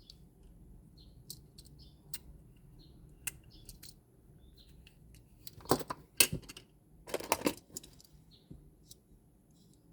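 Small hard toy parts being handled: scattered light clicks and clinks, with two louder rattling clatters about six and seven seconds in.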